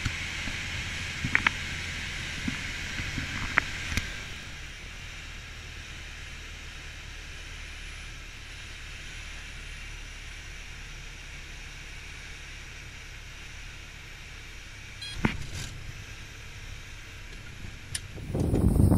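Light plane's piston engine and airflow heard from inside the cockpit during approach and landing roll: a steady drone that drops a little about four seconds in, with a few small clicks. A loud gust of wind on the microphone comes in near the end.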